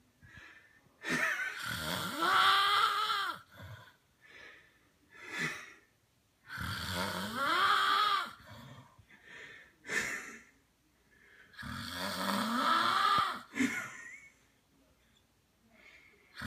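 A man snoring loudly in sleep: three long, pitched snores about five seconds apart, each rising and then falling in pitch, with short breathy sounds between them.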